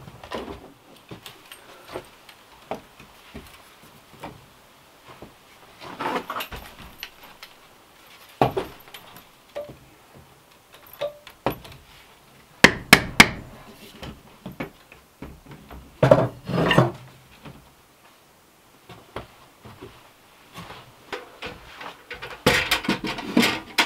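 Wooden snowshoe frames knocking against a log wall as they are hung, among scattered handling knocks, with sharp knocks about halfway through. Near the end, the clatter of a metal oil lantern being set down on a wooden shelf.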